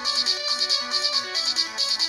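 Stock ringtone of a Nokia 3 smartphone playing: an electronic melody of short, stepping notes over a quick pulsing high part.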